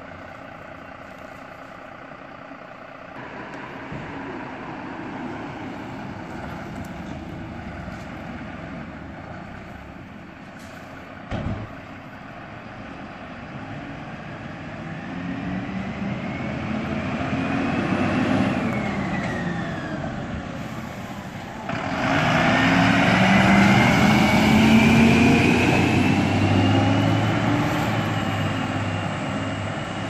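Fire trucks' diesel engines running and pulling away, building in level. The loudest comes in suddenly about 22 seconds in, with a whine rising slowly in pitch as it accelerates. A single sharp click about a third of the way through.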